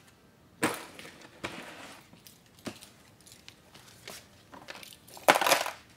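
Items being moved around and set down by hand, with footsteps and scattered knocks and scuffs; a short, louder burst of noise near the end is the loudest sound.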